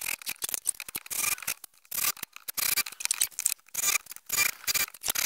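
SKIL cordless drill driving a Ryobi countersink bit into soft pine boards, countersinking pre-drilled screw holes: many short bursts of cutting in quick succession, starting abruptly.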